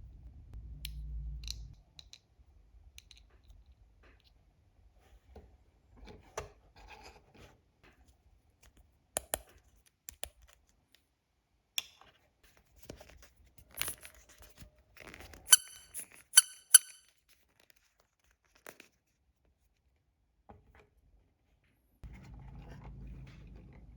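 Small plastic toy-kitchen pieces and packaging being handled and unpacked: scattered light clicks, taps and rustles, then three sharp, ringing plastic clicks in quick succession about two-thirds of the way through.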